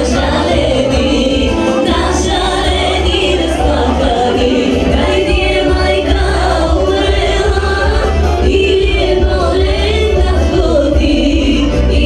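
A woman singing a Bulgarian folk song live into a microphone over loud amplified backing music with strong, steady bass.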